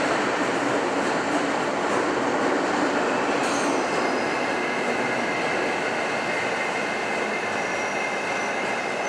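Keiyo Line electric train moving along an underground station platform: a steady rumble of wheels on rail. Thin high tones join about three and a half seconds in.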